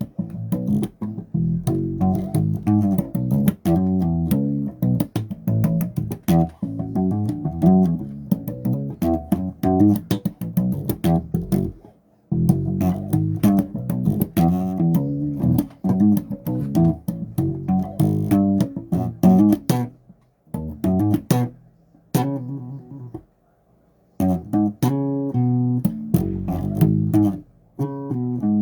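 Electric bass guitar played solo: a run of plucked notes that stops briefly a few times and starts again.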